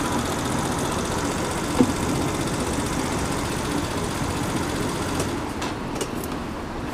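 Motor scooter engine idling steadily, with one short knock about two seconds in.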